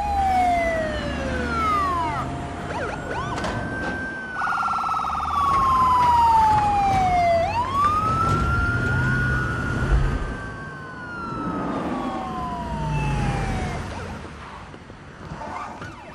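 Several police car sirens wailing together, their pitch sweeping up and down and overlapping, with a fast warbling yelp from about four to seven seconds in. A low rumble of vehicle engines runs underneath, and the sirens fade away near the end.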